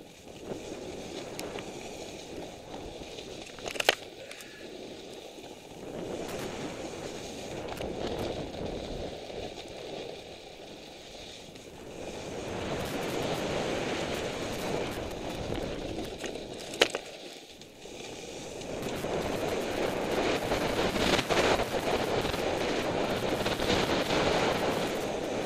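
Ski or board edges scraping and hissing across snow on a fast descent, swelling and fading with each turn, mixed with wind rushing over a helmet camera's microphone. Two sharp clicks stand out, one a few seconds in and one past the middle.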